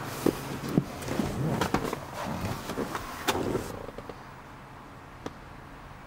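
Handling noise inside a car cabin: knocks, taps and rustling against the seats as the camera is moved through the interior, settling after about three and a half seconds. A single sharp click follows a little after five seconds.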